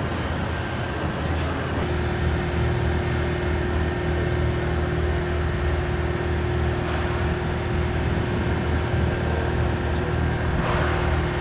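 A motor or engine running at a steady low hum. About two seconds in, a constant higher whine joins it and holds steady.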